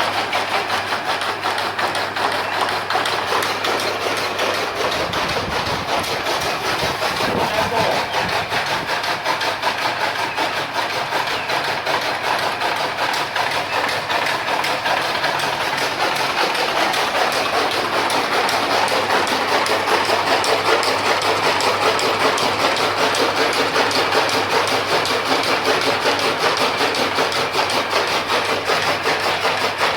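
Fodder-cutting machine (chaff cutter) running steadily, a dense mechanical clatter with a fast, even rhythm, growing slightly louder about halfway through.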